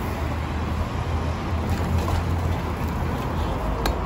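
Steady low outdoor rumble, with one sharp click near the end.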